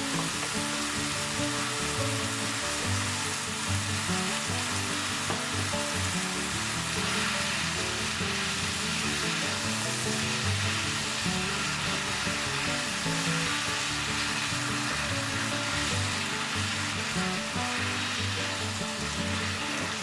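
Yaki udon noodles and vegetables sizzling steadily in a hot pan as they are stir-fried.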